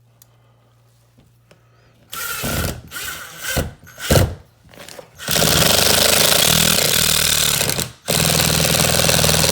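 Cordless drill-driver driving screws into wood: a few short spurts of the motor, then two longer steady runs as the screws go in until countersunk.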